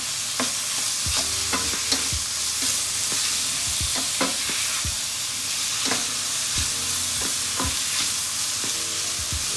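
Lamb pieces and sliced onions sizzling in butter and olive oil in a stainless steel frying pan. A wooden spatula scrapes and knocks against the pan every second or so as they are stirred.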